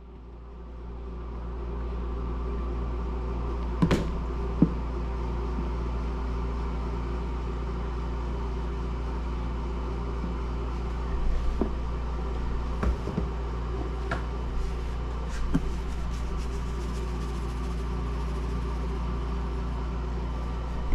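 Steady hum of a NuWave PIC Gold portable induction cooktop running on its sear setting, with a few light knocks and taps as a plastic jar is handled over a plastic bowl while flour is poured.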